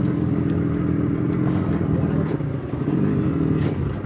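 Outrigger boat's engine running steadily with a low, even hum, and a couple of light knocks near the middle and near the end.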